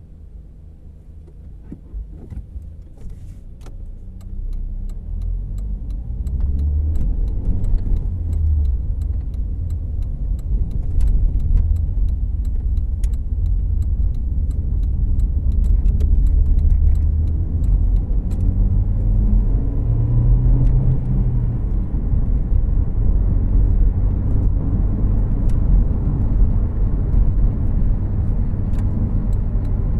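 Cabin noise of a 2014 Volkswagen Jetta Clásico heard from the passenger seat. It is quiet at first, then the engine and tyre rumble build over the first few seconds as the car pulls away and speeds up, settling into a steady low drone of engine and road noise.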